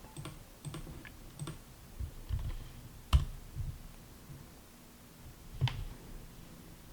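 A few scattered computer keyboard key presses and clicks, the sharpest about three seconds in and another near six seconds.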